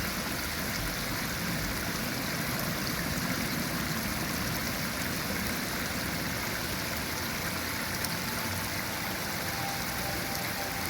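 Steady, even rush of running water from a river or waterfall.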